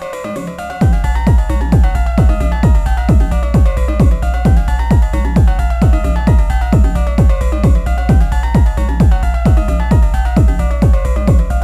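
Improvised techno played live on an Elektron Analog Rytm drum machine: a synth line sweeps up and down in pitch, and about a second in a heavy four-on-the-floor kick drum and deep bass drop in, the kick striking about twice a second.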